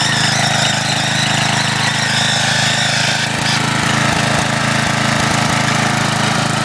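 Snapper riding mower engine running steadily.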